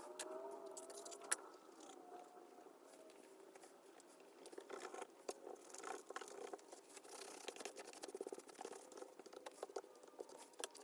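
Leftover battery adhesive being scraped and picked off the inside of a MacBook Pro's case: faint, scattered scratching and small clicks, pausing for a couple of seconds early on before starting again.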